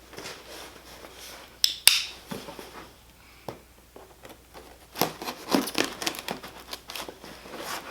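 Scattered clicks and clatter of small hard objects being handled, with a sharp click about two seconds in and a busier run of rattling and scraping from about five to seven seconds in.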